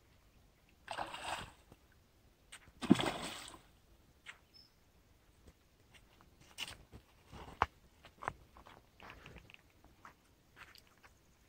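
Two short splashes of bait landing in shallow water, about a second and three seconds in, the second one louder with a plop, followed by scattered small clicks and rustles.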